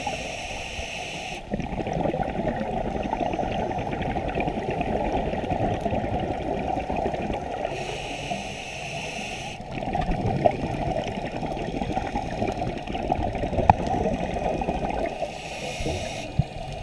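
Underwater recording of scuba diving: a steady muffled rush and crackle of water and bubbles, with a hiss that comes and goes three times, each lasting one to two seconds, in the rhythm of a diver breathing through a scuba regulator.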